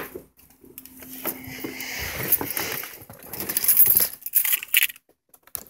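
Handling noise: rustling with scattered clicks and light metallic clinks, busiest toward the middle and quieter near the end.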